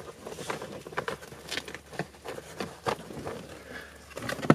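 Wiring being tucked by hand behind the dashboard: irregular light clicks and rustling of cables against plastic trim and carpet, with a sharper knock near the end.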